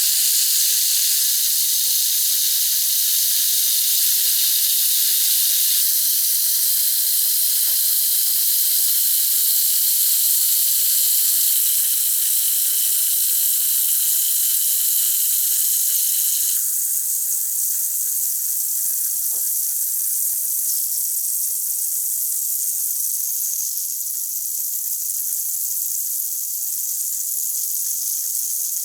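Calcium tablet fizzing steadily as it dissolves in a glass of water, with a high hiss of many bursting bubbles. It gets slightly softer a little past halfway.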